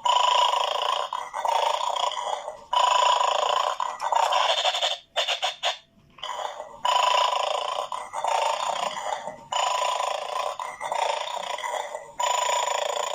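An animal eating its food, in noisy runs of chewing a second or more long with short breaks between them.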